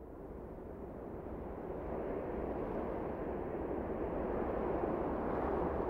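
Wind and water rushing past over open water, swelling up over the first two or three seconds and then holding steady.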